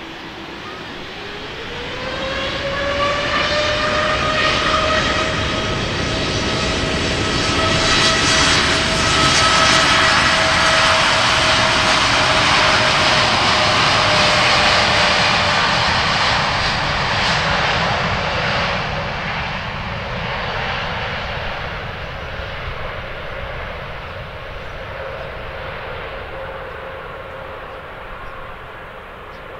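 Boeing 787-8's twin GEnx-1B turbofans spooling up to takeoff thrust at the start of the takeoff roll: a whine rises in pitch about a second in and levels off into a steady tone over a broad jet rush. The noise grows loud as the airliner runs past, then fades as it rolls away down the runway.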